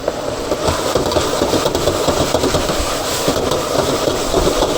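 Chicken frying in a wok over a gas burner: a steady dense sizzle and crackle over a low burner rumble.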